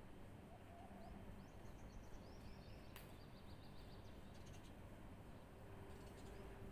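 Faint birdsong: quick series of high, repeated chirps, a few times, over a steady low background hiss, with one short click about three seconds in.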